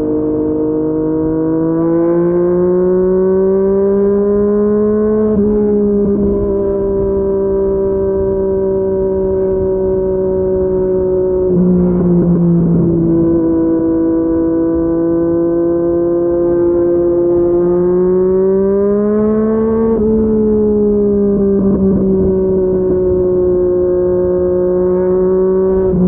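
Yamaha MT-09's inline three-cylinder engine through a Yoshimura R55 slip-on exhaust, under way: the revs climb and drop sharply at upshifts about five seconds in and again about twenty seconds in, with steadier running between.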